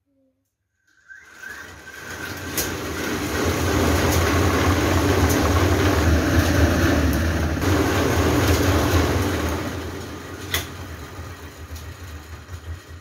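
Homemade string-pull spin painting machine spinning up with a bare board on its turntable: a whirring rush of air and low rumble that builds over a few seconds, holds steady, then dies away near the end as the board coasts down. A few sharp ticks ring out over it.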